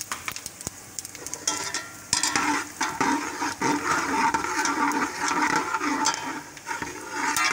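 Whole spices (cumin and coriander seeds, peppercorns, cloves, cinnamon, bay leaves) sizzling in hot oil in a steel pot, stirred with a metal slotted spoon that clicks and scrapes against the pot. The sizzling grows louder about two seconds in.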